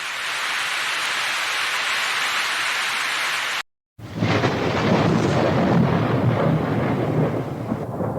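Steady hiss of rain that cuts off abruptly about three and a half seconds in. After a brief silence it gives way to louder heavy rain with a rumble of thunder underneath.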